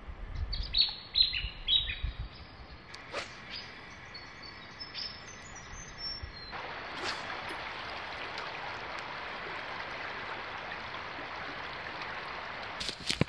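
Birds calling in a quick series of short, high, falling notes, then, about six and a half seconds in, the sound changes abruptly to the steady rush of a river running over shallows.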